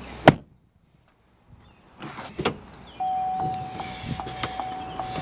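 A loud sharp knock just after the start, then a moment of near silence and another knock about two and a half seconds in. From about three seconds in, a 2010 Chevy Tahoe's door-open warning chime sounds: a steady tone pulsing about two and a half times a second.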